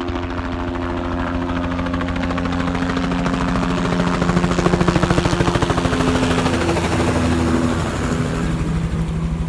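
Helicopter flying over during aerial seeding, with a fast rotor beat and engine whine that grow louder toward the middle and ease off near the end.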